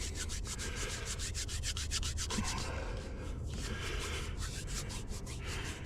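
Quick scratchy rubbing, several strokes a second: hands rubbing a cold lighter to warm it. A low wind rumble runs underneath.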